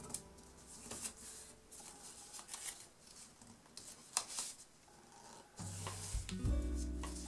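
A sheet of paper being folded and creased by hand: soft, scattered rustles and crackles of the paper. Background music comes back in about three quarters of the way through.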